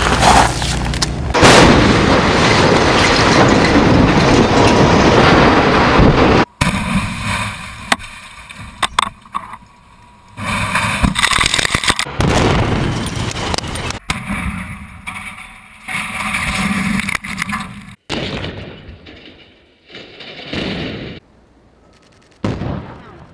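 Explosive demolition charges going off in several separate takes: sharp blast reports and the noise of concrete structures coming down in dust, each take cut off abruptly.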